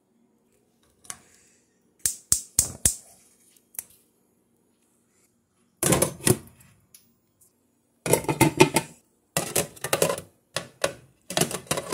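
Cookware being handled: metal tongs and glass pan lids clinking and clattering against pans. A single click, a quick run of four clicks, then several bursts of rattling toward the end.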